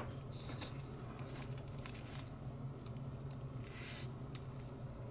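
Faint scattered clicks and soft rustles of small metal parts and hand tools being handled on a workbench, over a steady low hum.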